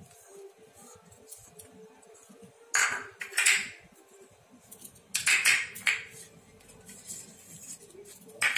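Spoons clinking and tapping against a glass bowl as spices are tipped in: two short clatters, about three seconds in and again a little after five seconds.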